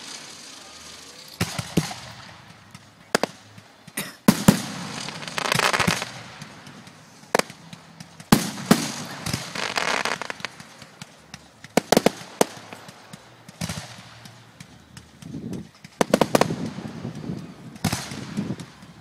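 Fireworks display: aerial shells bursting in sharp bangs at irregular intervals, a second or two apart, with longer stretches of crackling after some of the bursts.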